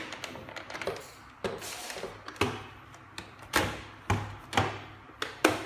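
Hard plastic parts of a toy foam-dart blaster knocking and clicking as a section is fitted on, about half a dozen sharp knocks spread over a few seconds.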